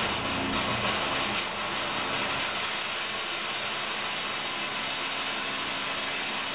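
Takex Fog Guard security fog generator discharging its jet of fog: a hiss that starts suddenly and then holds steady, with a faint low hum underneath.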